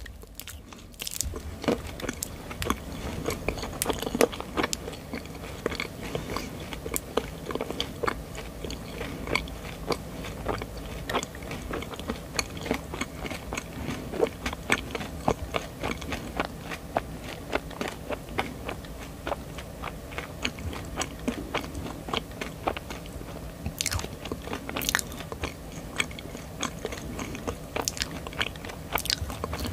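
Close-miked chewing of a marshmallow, with a steady run of small, irregular sticky mouth clicks.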